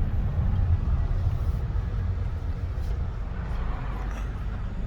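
Steady low road rumble of a car in motion, heard from inside the cabin.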